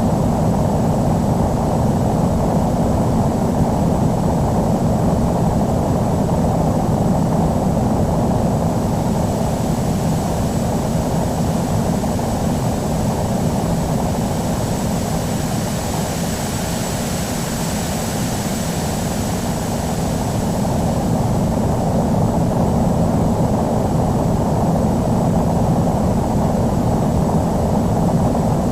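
Airbus A319 jet noise: a steady low rumble with a thin, steady high whine. A high hiss swells and fades about halfway through.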